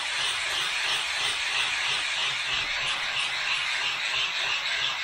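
An oil sharpening stone being scraped back and forth on an extra-coarse 120-grit DMT diamond plate wetted with Windex: a steady gritty grinding that swells with each stroke. The stone is being lapped flat to take out a dish worn into its centre.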